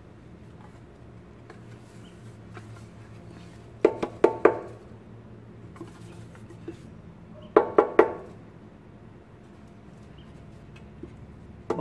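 A stainless-steel blender jug is knocked to shake ground soap powder out of it, giving two quick sets of three ringing metallic knocks, about four seconds in and again near eight seconds.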